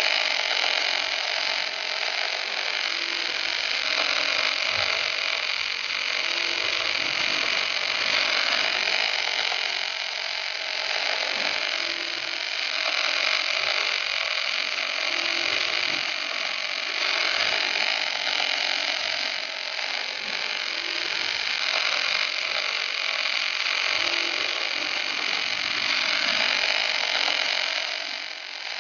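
MIG welding arc at the torches of a portable double-sided fillet-welding carriage, burning steadily as one unbroken, dense buzzing hiss.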